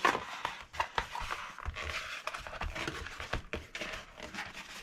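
Thin laser-cut cardboard being bent and creased by hand against a tabletop: a sharp crack at the start, then irregular crackles, rubs and soft knocks.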